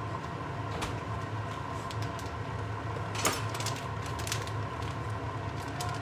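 Kitchen handling noise over a steady low hum: scattered light clicks and knocks, the sharpest about three seconds in, as a packet is handled beside the stove.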